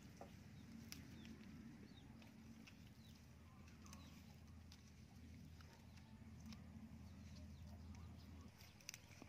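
Near silence: a faint steady low rumble, with a few soft clicks and a few faint high chirps, likely small birds.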